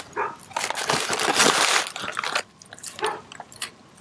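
Crinkly plastic snack bag of Goldfish crackers being handled, a run of crackly rustling that fades out about two and a half seconds in and returns briefly near the end.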